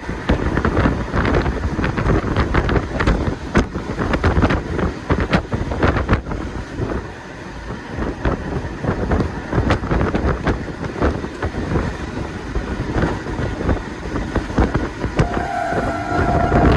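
Moving passenger train, with dense, irregular rattling and clattering and wind buffeting the microphone. A steady pitched tone sounds for the last second and a half.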